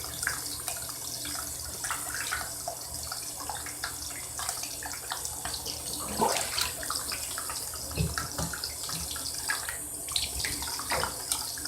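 Water running steadily from a tap during a dog's bath, with scattered small splashes and a couple of louder knocks about six and eight seconds in.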